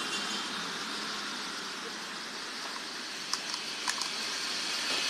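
A few light clicks, about three to four seconds in, from a chainsaw chain being fitted by hand, over a steady background hiss.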